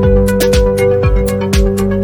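Electronic background music with a steady beat: a kick drum about twice a second, hi-hat ticks and held synth notes.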